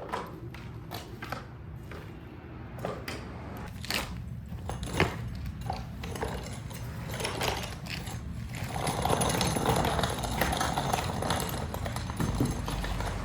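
Clicks, knocks and scraping of plastic engine-bay trim being handled. A rotary clip is turned and a plastic screen cover is worked loose and lifted off.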